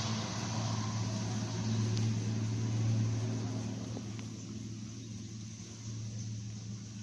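Intercity bus driving past at speed, a low steady engine hum under rushing road noise that peaks about three seconds in and then fades away.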